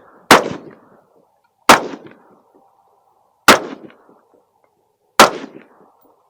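AR-15 rifle firing four single shots at a slow, even pace, about one every one and a half to two seconds, each crack followed by a short echo.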